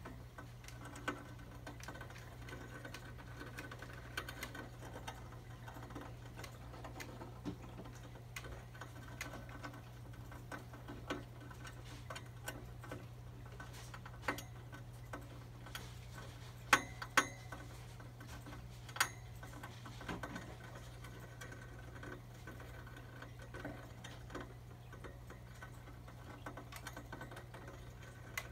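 Small rodents moving about in plastic habitat cages: light, irregular clicking and scratching of claws on plastic and dry bedding, with a few sharper clicks a little past the middle, over a steady low hum.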